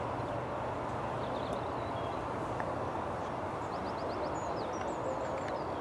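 Distant, steady rumble of an Airbus A330-200's jet engines at taxi power. Small birds chirp over it, with a quick run of chirps about four seconds in and a short trill near the end.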